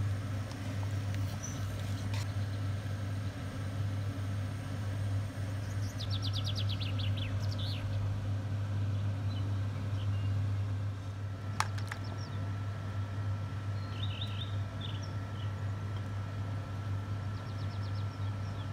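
A steady low hum runs throughout. Small birds chirp in short, quick trills now and then, and a single sharp click comes about two-thirds of the way through.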